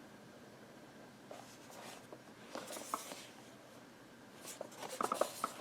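A small cardboard product box being handled and turned over: scattered rustles and light taps, busiest near the end.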